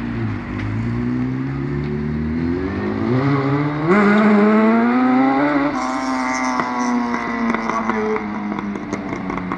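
Honda CBR sport motorcycle accelerating hard away, its engine revving up through several gear changes, pitch climbing in steps. After about six seconds in, the pitch slowly falls as it eases off in the distance.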